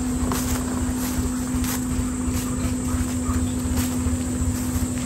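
Vehicle engine idling steadily, a constant hum with low rumble underneath.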